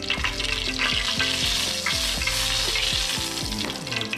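Tilapia frying in hot oil in a pan, a steady sizzle.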